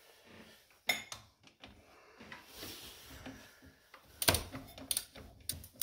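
Ratchet wrench and socket clinking on a bolt of the scooter's belt-drive side: one sharp metallic clink about a second in, then a quick run of clicks and knocks near the end as the wrench is worked.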